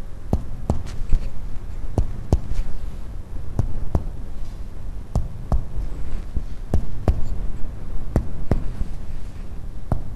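Finger-on-finger percussion of the chest over the back: a series of short, dull taps, often two or three in quick succession, as the tapping moves from spot to spot. A steady low hum runs underneath.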